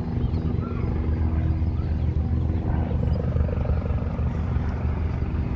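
Helicopter flying close, its rotor beating in a steady, fast, low chop over the hum of the engine.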